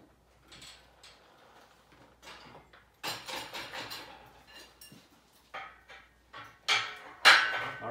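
Metal clinks, knocks and rattles as an engine hanging from a shop engine hoist is lowered and guided onto its mounts in the truck frame. The sounds are scattered and quiet at first, grow louder about three seconds in, and end in the loudest, briefly ringing clank near the end.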